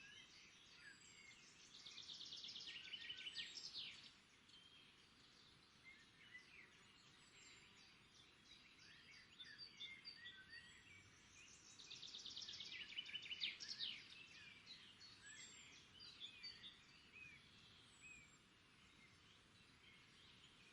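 Several forest birds singing and chirping, with a faster run of rapidly repeated notes standing out twice: about two seconds in and again about twelve seconds in.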